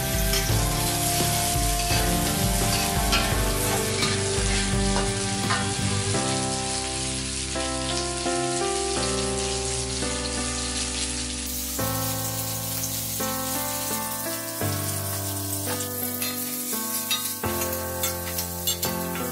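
Chopped chillies, shallots and garlic sizzling as they are stir-fried in oil in an aluminium wok, with the metal spatula scraping and clicking against the pan. Slow background music with held chords plays over it.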